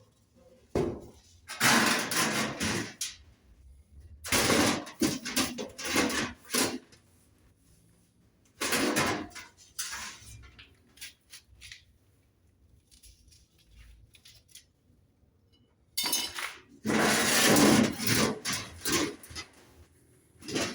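Metal clattering and scraping in four separate bursts of one to three seconds, the longest near the end.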